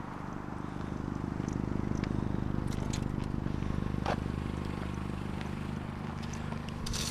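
A motor vehicle's engine running with a steady low hum that swells over the first couple of seconds and then eases slightly, with a few light clicks and a knock about four seconds in.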